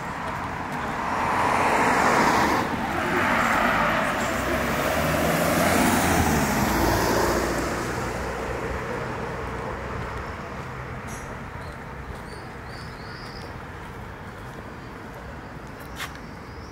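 Road traffic passing on a city street: vehicles drive by, loudest in the first half, then fade to a steady background hum. A few faint bird chirps come near the end.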